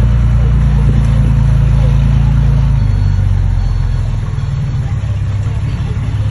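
Diesel engine of heavy construction machinery running, a loud low drone whose note and level drop slightly about three to four seconds in.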